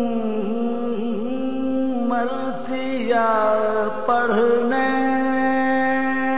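Soz chanting: a man's voice holds a long unaccompanied note over a steady sustained drone. A few seconds in, an ornamented run slides up and down, then settles back onto the held note.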